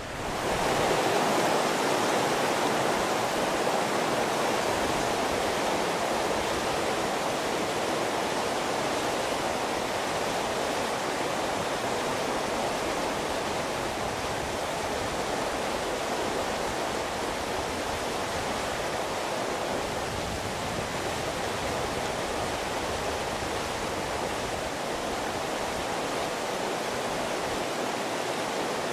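Mountain stream rushing over rock slabs and small cascades: a steady rush of whitewater.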